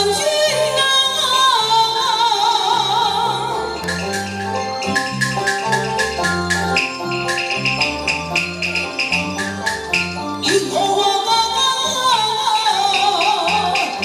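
Taiwanese opera (gezaixi) singing through a microphone, with the live band: a wavering sung line over the accompaniment. About four seconds in, an instrumental interlude takes over, with quick, regular percussion strikes. The singing comes back about ten and a half seconds in.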